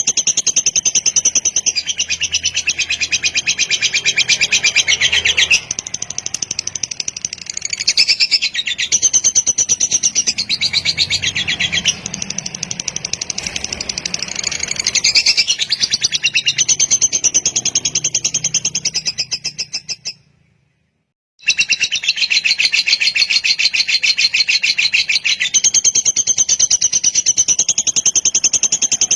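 Lovebird singing a long, continuous 'kekek' chatter: a very rapid run of shrill repeated notes that shifts in pitch now and then. It cuts out completely for about a second about two-thirds of the way through, then resumes.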